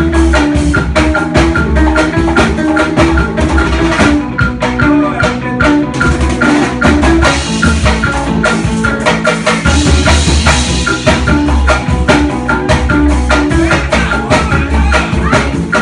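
Band music: an instrumental passage with drums and shakers, a pulsing bass and a repeating melodic line of short notes, with no singing.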